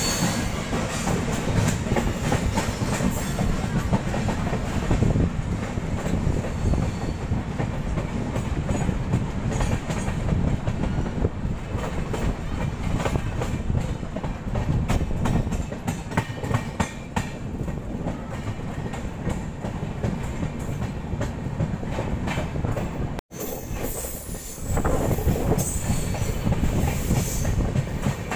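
Express train coaches running at speed, heard from an open coach door: a steady rumble of wheels on rail with scattered clatter over rail joints. The sound drops out for an instant near the end at an edit, then the running noise resumes.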